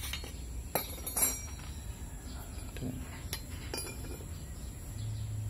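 Scrap steel parts (old sprocket, nuts and bolts) clinking and knocking lightly as they are handled, a few separate sharp clicks.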